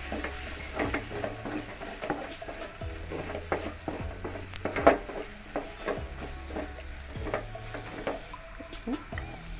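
A wooden spatula stirs and scrapes a frying onion, tomato and spice-powder masala in an aluminium kadai, the mix sizzling in the oil. The spatula's scrapes and knocks against the pan come irregularly, roughly once a second.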